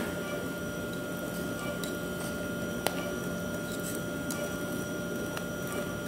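Thick cooked polenta being poured out of a pot into a stainless-steel dish, faint under a steady hum, with one sharp click about three seconds in.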